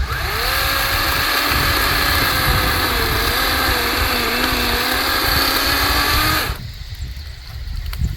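Small battery-powered electric chainsaw running and cutting a branch: its motor whine sags and wavers in pitch under load, then cuts off suddenly about six and a half seconds in.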